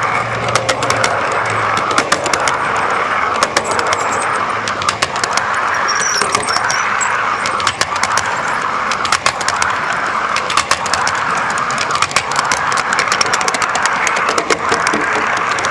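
G scale model freight train cars rolling past close by: a steady rushing of wheels on the track, with many quick, irregular clicks throughout.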